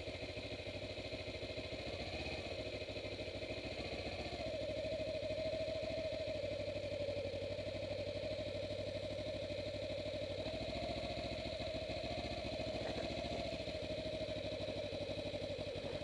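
Kawasaki Ninja 250R's parallel-twin engine running at a steady, low engine speed. Its pitch rises slightly twice, about two and four seconds in, then holds.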